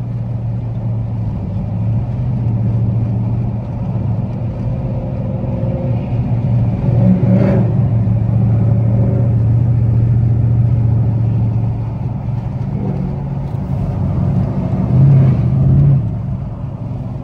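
Dodge Charger SRT8's HEMI V8 running under way, a steady low exhaust drone with a short click about halfway through and a brief swell in revs near the end.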